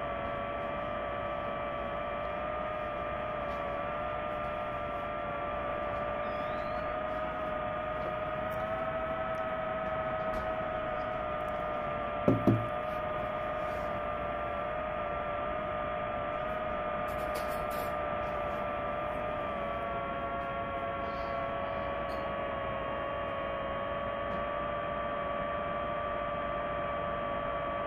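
Steady whine of a DJI FPV drone's motors and propellers in flight, one tone with a higher overtone that wavers slightly and dips a little in pitch about twenty seconds in as the throttle changes. A brief short sound cuts in about twelve seconds in.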